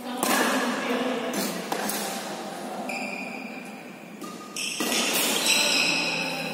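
Badminton rally: sharp racket strikes on the shuttlecock, ringing in a large hall, and short high squeaks of court shoes on the floor.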